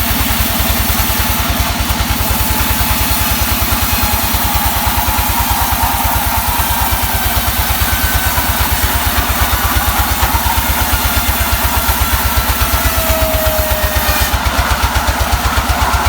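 Sawmill engine running steadily with a rapid, even chugging beat, with a faint whine now and then above it.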